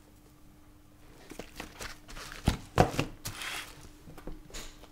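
Firecracker packs and their packaging being handled on a table: a few light knocks and taps, the two loudest about two and a half seconds in, then a short rustle of packaging.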